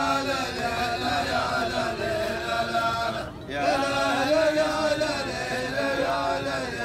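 A row of men chanting a rajaz verse together in a drawn-out, sung style, with a short break for breath about three seconds in.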